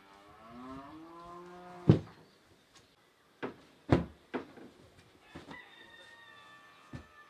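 A rooster crows in the first two seconds. This is followed by several heavy thuds as floor mattresses are dropped onto the carpeted floor, the first the loudest. A second, higher-pitched call is held for about two seconds near the end.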